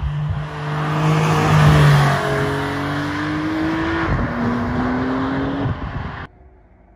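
A car's engine roaring as it accelerates hard past and away. Its note climbs, drops at a gear change about four seconds in, then climbs again until the sound cuts off suddenly near the end.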